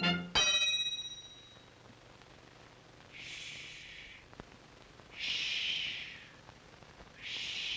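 A single metallic clang near the start that rings on briefly, then three long breathy hisses like a 'shh', about two seconds apart.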